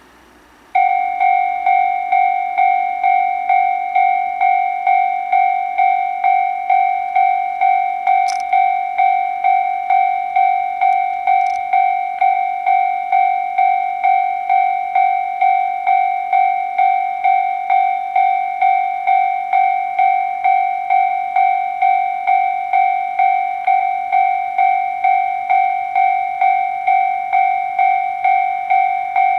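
Japanese railway crossing warning bell ringing: an electronic two-tone ding struck over and over at an even, quick pace, starting just under a second in. It signals that a train is approaching the crossing.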